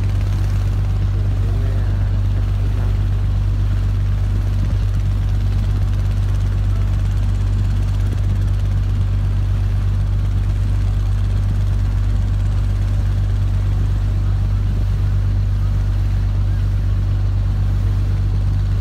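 A river ferry's engine running steadily under way: a constant low hum that does not change.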